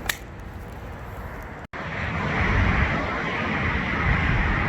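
Steady rush of busy road traffic with a low rumble, starting abruptly under two seconds in; before it, fainter background noise.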